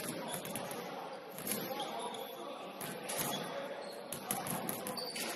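Basketball bouncing on a hardwood gym floor as it is dribbled, a handful of sharp, irregular bounces over a background of voices.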